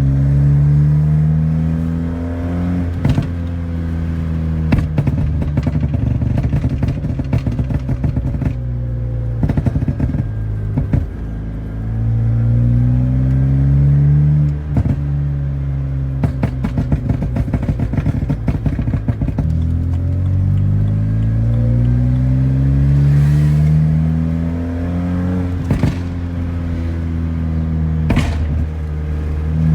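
BMW 320i E90's four-cylinder petrol engine on a Stage 2 tune, revving up repeatedly, each climb followed by strings of sharp pops and crackles from the exhaust as the revs drop.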